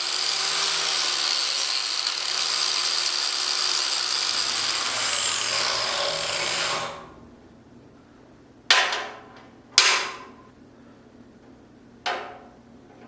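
A power tool works steel for about seven seconds with a steady high whine, then stops. Three sharp metal clanks with short ringing follow.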